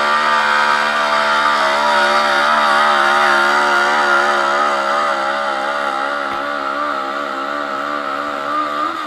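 Modified pulling lawn tractor's engine running hard at a steady high pitch under load while dragging a weight-transfer sled. From about two seconds in the pitch wavers, and right at the end the revs fall away as the throttle comes off.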